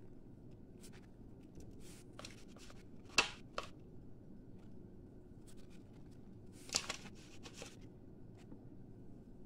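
Garlic salt shaker shaken over a plate: scattered short rattling shakes, the two loudest about three and seven seconds in.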